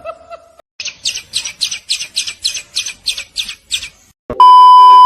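A bird chirping rapidly and evenly, about four high chirps a second for three seconds. Near the end comes a loud, steady, electronic beep lasting under a second.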